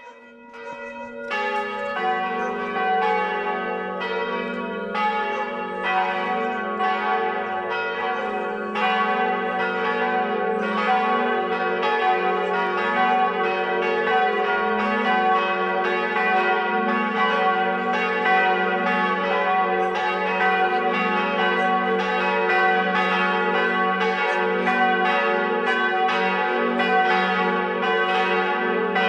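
Several church bells ringing together in an uneven, continuous peal. A single bell starts it, and the others join within the first two seconds.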